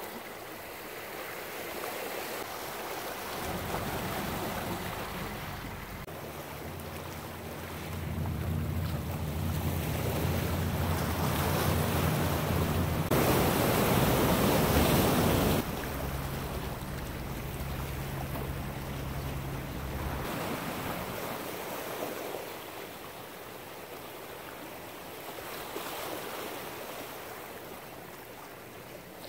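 Ocean surf washing and breaking against shoreline rocks, with wind buffeting the microphone. A wave crashes loudest a little before halfway, and a low steady drone runs under the surf through much of the middle.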